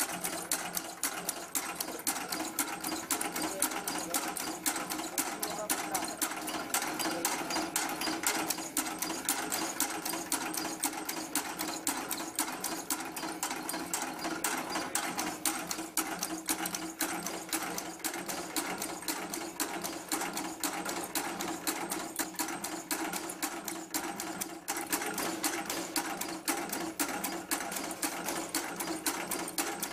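Automatic packing-clip making machine running steadily, its mechanism clattering in a fast, even run of clicks over a steady hum.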